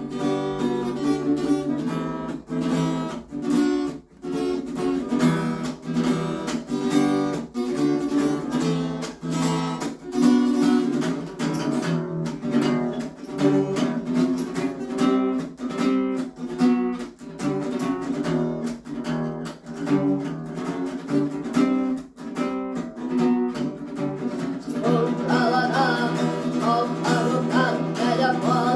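Acoustic guitar strummed in a steady rhythm as a song's introduction. About 25 seconds in, a boy's voice begins singing over it.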